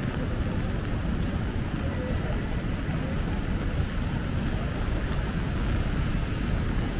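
Steady noise of a rain-soaked city street: a constant low rumble with a hiss of rain and wet pavement over it.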